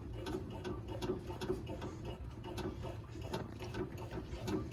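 Run of light mechanical clicks and ticks, a few a second and uneven, from the brake pedal and linkage of a 1965 Cushman Truckster being worked to bleed the brake lines and build pressure back into them.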